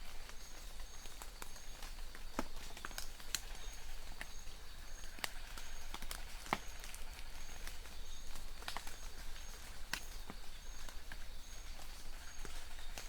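Steady rain with irregular sharp ticks and splats of large drops hitting surfaces; a faint high chirp repeats about twice a second behind it.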